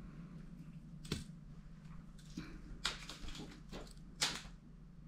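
Scattered light clicks and taps as a cat wand toy and its string lure are handled and moved about, the sharpest tap near the end, over a steady low hum.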